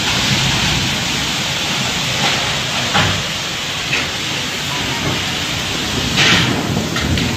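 Storm wind and driving rain, a loud steady rush, with a few short sharp sounds standing out, the strongest about six seconds in.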